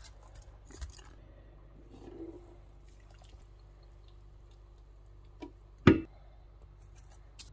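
Sliced onions and a thick blended puree tipped onto raw chicken pieces in a pan: soft wet plops and small clicks, with one sharp knock about six seconds in.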